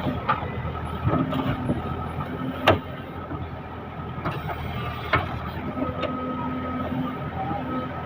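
JCB 3DX backhoe loader's diesel engine running steadily while digging, with a few sharp metallic knocks, the loudest about two and a half seconds in.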